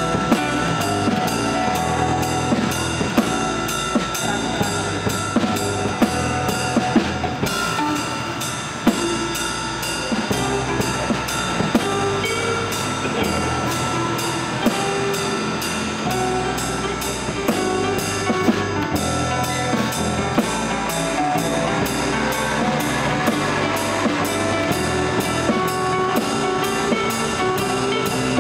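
Instrumental passage of live acoustic music: two acoustic guitars playing over a small drum kit struck with sticks, keeping a steady beat with cymbal hits.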